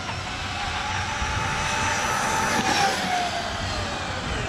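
Castle 1717 1650kv sensored brushless motor in an X-Maxx RC truck running under power, a steady electric whine over gear and tyre noise. The whine falls in pitch over the second half as the truck slows or passes by.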